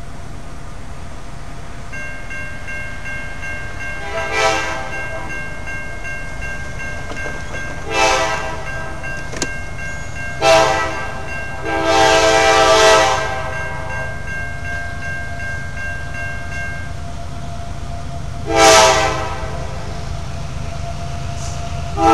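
CSX freight locomotive horn sounding a series of blasts for a grade crossing: short blasts about 4, 8 and 10 seconds in, a longer one around 12 seconds, another near 19 seconds and one more at the very end. Underneath, the crossing's bell rings steadily from about 2 seconds in until it stops around 17 seconds.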